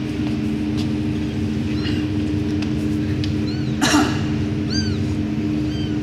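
Newborn kittens mewing in thin, high squeaks that rise and fall, several times, over a steady low hum. A short, louder burst of noise comes about four seconds in.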